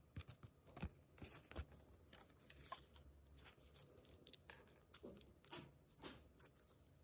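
Faint, scattered crinkling and clicking from surprise-egg packaging being handled and torn open, with a couple of sharper clicks about five and five and a half seconds in.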